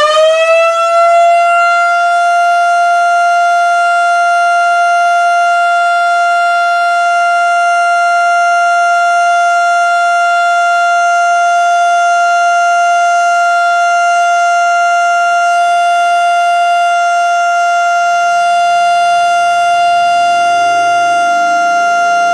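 1955 Federal Signal Model 2 mechanical siren sounding the Alert signal: its pitch climbs over the first second or two as the rotor comes up to speed, then holds one steady, loud tone. The tone is high-pitched for this siren, a sign that its rotor bearings have worn in.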